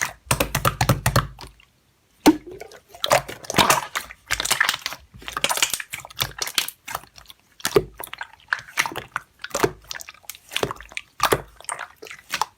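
Slime being squished and played with by hand: an irregular run of wet squelches and sharp little pops, several a second with brief pauses.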